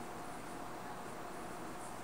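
Steady background hiss with a faint constant hum: room tone, with no distinct events.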